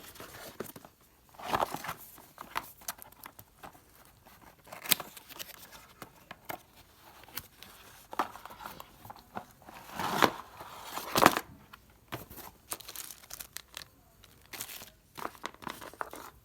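Packaging being handled, crinkling and rustling, with irregular clicks and knocks and a few louder crackles.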